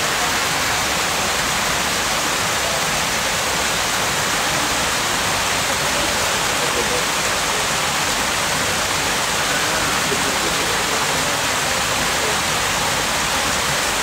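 Small artificial waterfall running steadily: an even rush of water spilling over rocks.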